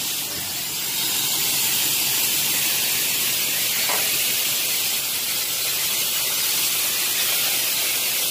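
Steady, loud hiss of air escaping from a stopped train locomotive, unbroken throughout, with a faint brief tone about halfway through.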